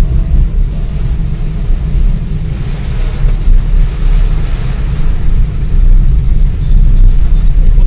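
Steady, loud low rumble of a car driving through heavy rain, heard from inside the cabin, with a fainter hiss of rain on the glass.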